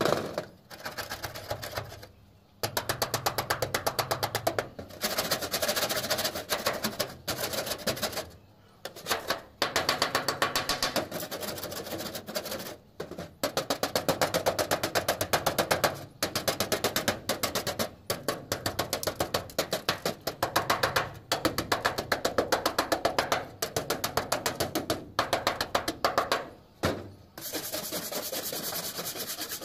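Hand-held metal scraper worked in rapid short strokes over a rusted corrugated steel roof sheet, scraping rust and debris off a leaking seam. The strokes come in bursts of a second or more with brief pauses between them, and turn into a steadier rasp near the end.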